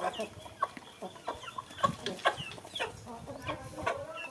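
Spoon and chopsticks clinking and scraping against a ceramic noodle bowl, several sharp clinks, with short falling chirping calls from an animal in the background.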